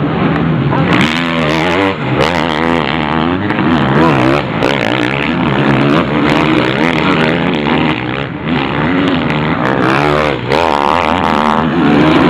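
Several MX1 motocross bikes revving hard as they ride uphill, engine pitch repeatedly rising and dropping with throttle and gear changes, overlapping one another.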